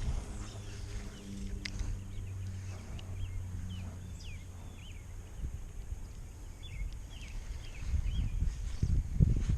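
Outdoor ambience with small birds chirping in short, falling notes. A low hum fades out after about four seconds, and low rumbling thumps come in near the end.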